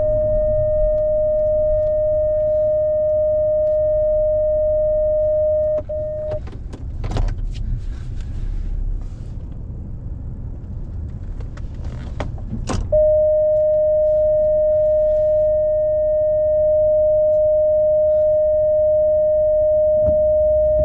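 Pickup truck's reverse park-assist alarm sounding one steady, unbroken beep tone. This is the continuous alert for an obstacle very close behind, here the wagon the truck is backing up to. The tone stops a little under a third of the way in, leaving a few clicks and knocks over low rumble, then comes back about two thirds of the way through.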